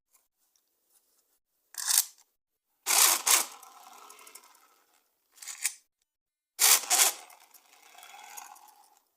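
Four sharp clacks from handling plastic toys and their packaging, two of them followed by about two seconds of quieter rattling and scraping.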